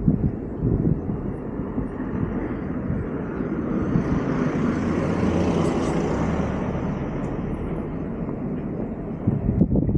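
A vehicle passes by: its noise swells to a peak about halfway through, with a low hum, and then fades away.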